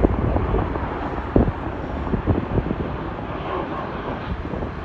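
Jet airliner on approach, its engines a continuous low rumble, with wind buffeting the microphone in uneven gusts and thumps.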